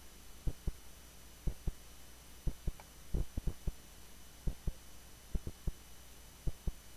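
Steady low electrical hum with faint short low thumps, mostly in pairs about once a second.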